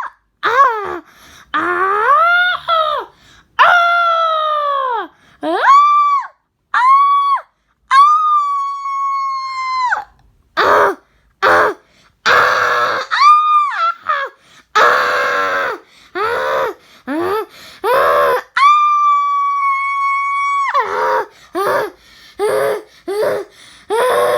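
A string of loud, high-pitched human screams, each cut off sharply before the next. Some slide up or down in pitch, a few are held level for about two seconds, and others are rough and hoarse.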